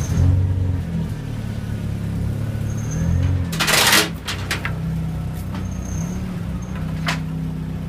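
Chevrolet S10 pickup's engine running as the truck creeps away at low speed, its low hum shifting slightly in pitch. A short, loud rushing noise comes about four seconds in, with a few sharp clicks after it.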